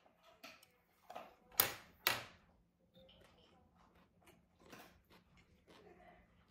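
A poodle eating from its bowl: scattered crunches and small clicks, with two loud sharp clicks about half a second apart near two seconds in.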